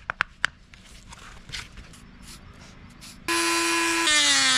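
A few light clicks, then about three seconds in a handheld rotary tool starts up with a loud, steady, high whine, its pitch sagging near the end as it bears on the flattened cow-horn spoon blank.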